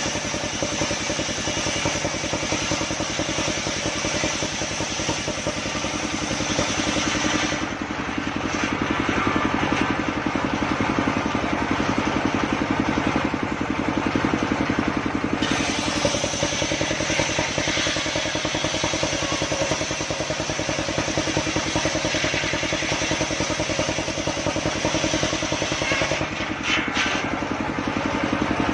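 Homemade engine-driven circular saw running steadily while sawing sengon wood, with the engine's pulse under the blade's hiss. The high hiss drops away for several seconds about a quarter of the way in, then returns.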